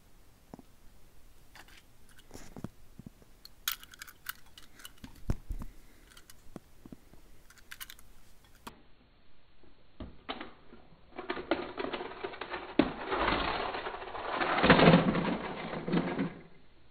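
Toy train engine rattling along plastic toy track: a dense clatter that builds for about five seconds and stops shortly before the end, with scattered light plastic clicks and knocks before it.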